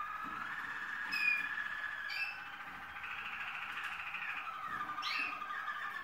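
Waterslager (Malinois) song canaries singing: long, low rolling song lines held on without a break, several voices overlapping, with short rising notes cutting in about one, two and five seconds in.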